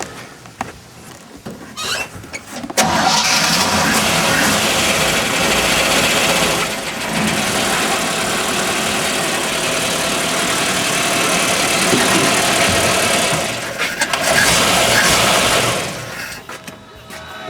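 1956 Chevy truck's engine cranking and catching about three seconds in, then running loudly before it dies away near the end.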